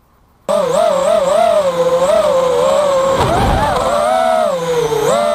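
Brushless motors and propellers of an FPV racing quadcopter whining. They cut in suddenly about half a second in as it lifts off again after a crash, the pitch rising and falling with the throttle. A brief low rush comes about three seconds in.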